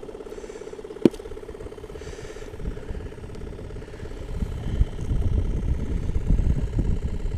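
A small engine idling with a steady hum. There is one sharp click about a second in, and from about four seconds on a low, uneven rumble of wind or handling builds up.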